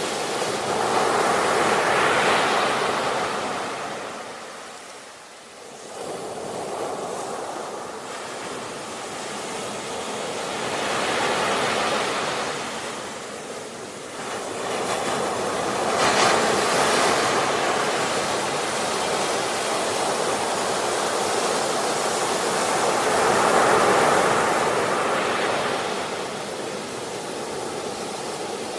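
Sea waves breaking and washing up the shore, swelling and fading in about four slow surges, with a near-lull about five seconds in.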